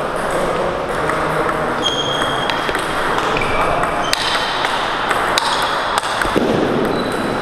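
Table-tennis balls clicking off bats and tables in rallies at several tables, a scattered series of short sharp pings over a steady background noise of the hall.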